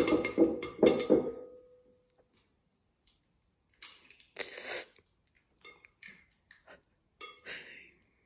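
An egg knocked about four times against the rim of a glass mixing bowl in the first second and a half, the bowl ringing briefly after the knocks. Then softer crackles and rustles as the shell is broken open by hand to separate the egg.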